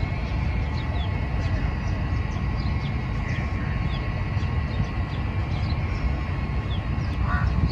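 Open-air park ambience: a steady low rumble with many short, high bird chirps scattered over it.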